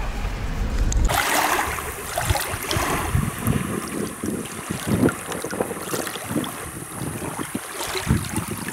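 Small waves lapping and splashing irregularly against a shallow shore, with wind buffeting the microphone. For the first second, before a sudden cut, a vehicle's low rumble is heard instead.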